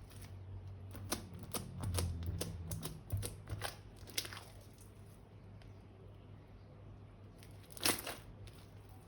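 Hands handling plastic slime-making materials such as piping bags and small boxes: a quick run of sharp clicks and taps in the first few seconds over a low hum, then a single louder click about eight seconds in.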